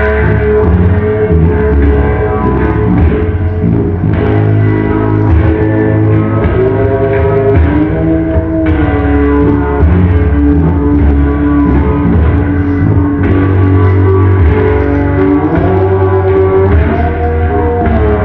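Rock music with guitar, played loud and without a break; the melody runs in long held notes that slide from one pitch to the next over a steady bass.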